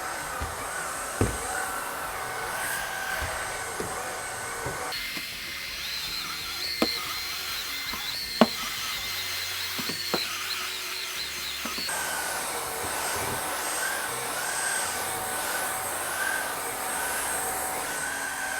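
Shark Rocket cordless stick vacuum running on carpeted stairs, a steady whine with scattered knocks and clicks. The whine changes pitch abruptly about five seconds in and shifts back about twelve seconds in.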